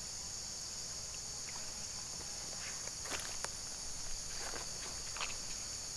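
Steady high-pitched shrilling of an insect chorus, with a few faint footsteps in the grass from about three seconds in.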